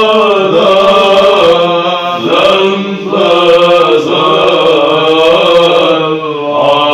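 Male monastic choir singing Byzantine chant in Arabic: a melody line that bends up and down over a steady held low drone, the ison.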